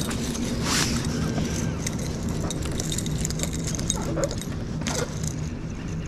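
Boat motor running with a steady low hum, with a few light clicks and knocks scattered over it.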